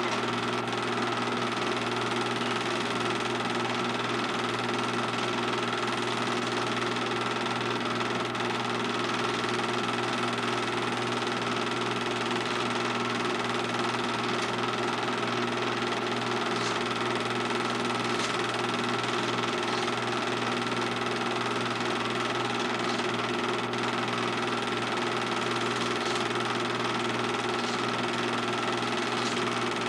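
Steady whirring and humming of a film projector running, an even mechanical drone with faint ticks here and there.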